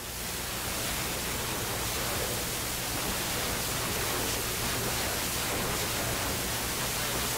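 Steady, even hiss with no music or voice.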